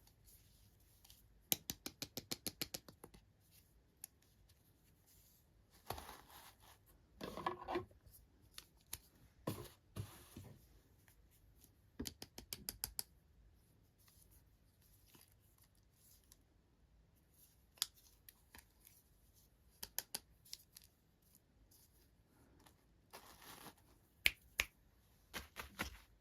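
Toy packaging being handled and opened: several runs of rapid small clicks, about eight a second, with short bursts of rustling and crinkling in between.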